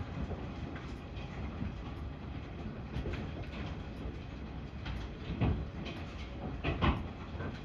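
Hail falling steadily: a dense rattle of hailstones striking the ground, with a few louder knocks about five and a half and seven seconds in.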